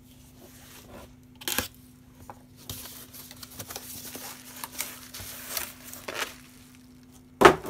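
A padded plastic bubble mailer being picked up and handled, rustling and crinkling, with a few sharp clicks. There is a loud thump near the end.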